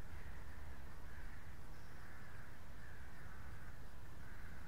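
Birds calling over and over, with a steady low rumble underneath.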